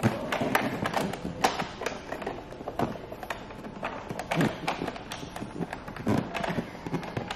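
A run of irregular knocks, taps and thumps, with several heavier thuds among quicker light clicks.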